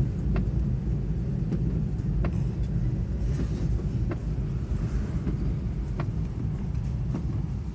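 Car heard from inside the cabin while driving: a steady low rumble of engine and road noise, with a few faint, irregularly spaced clicks.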